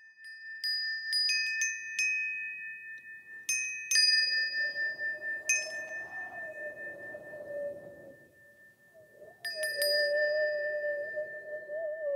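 Ambient music: a series of chime strikes ringing out over a steady high sustained tone. A low wavering drone enters about four seconds in, fades, and swells again toward the end.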